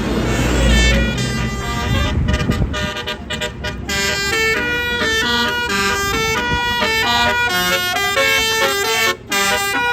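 Indonesian tour bus's Basuri telolet horn playing a fast melody, note after note in quick steps, after a low rumble of the passing bus in the first second or two.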